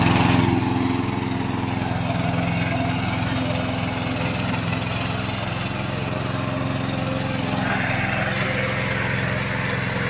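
Remote-controlled tracked mower's Loncin 9 hp single-cylinder petrol engine running steadily as the machine cuts through tall grass. A louder rushing noise joins in about eight seconds in.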